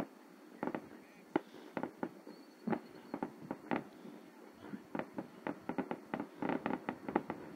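Fireworks going off: an irregular string of sharp pops and bangs, coming thicker in the last few seconds.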